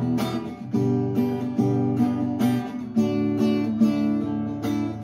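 Acoustic guitar strummed in a steady rhythm, chords of a song's introduction without singing.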